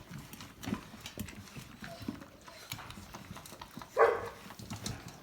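Puppies at a feeding wheel, with scattered light clicks and taps, and one short yelp about four seconds in.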